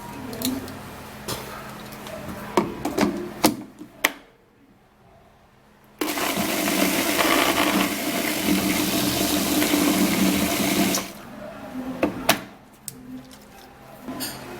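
Electric kitchen blender running for about five seconds, grinding bitter kola and ginger in water, starting and stopping abruptly. Before and after it come knocks and clicks of the jar and lid being handled.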